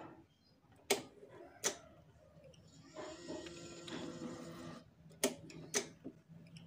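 Yamaha Mio GT's electric fuel pump running for about two seconds with a whirring hiss, pushing fuel out of the disconnected hose, between sharp clicks, two before it and two after. The pump is running and delivering fuel normally.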